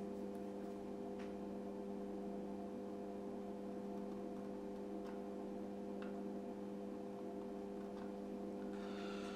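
Steady electrical hum holding one low pitch with overtones, with a few faint light clicks.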